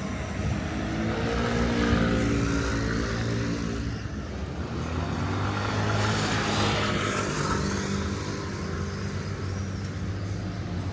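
Motor vehicles passing along a street, engines rising and falling as they go by: one pass peaks about two seconds in, another around six to seven seconds in.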